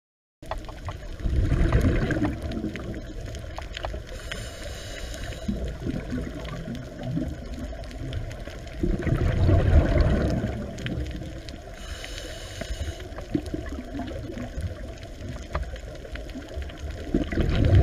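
Underwater ambience from a camera beneath the sea: a muffled, low water rumble and gurgling that swells and eases, with two brief hissing bursts about four and twelve seconds in.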